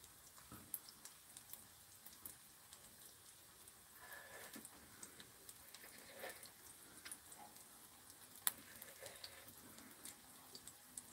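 Near silence with faint, scattered crackles and ticks of a kimchi pancake frying in oil in a pan, and one sharper click past the middle.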